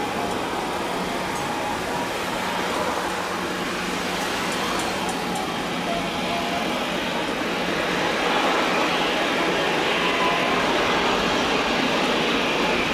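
Jet engines of a Boeing 737-800 airliner as it touches down and rolls out on a wet runway: a steady noise that grows louder about eight seconds in.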